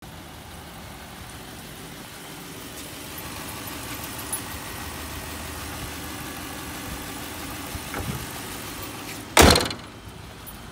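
Lexus LS's 4.3-litre V8 idling steadily under the open hood. A light knock, then one loud slam of the hood being shut near the end.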